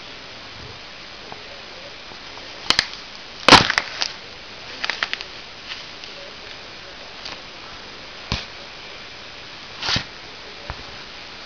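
An apple crushed under a work boot: a couple of sharp clicks, then a loud crack about three and a half seconds in, followed by a quick run of smaller crunches. Later come two more short knocks.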